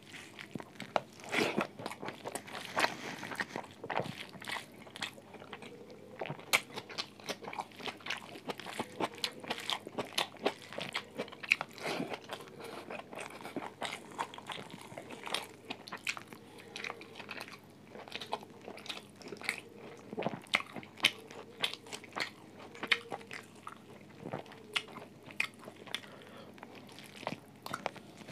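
Close-up eating sounds from a roast chicken, rice, green chili and tomato meal: continual crunching bites and chewing, with many sharp crunches in quick, irregular succession, picked up on a mobile phone microphone.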